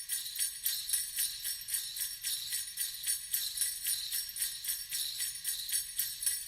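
Sleigh bells shaken in a steady rhythm, about three to four shakes a second, with a bright, high jingle and nothing low underneath.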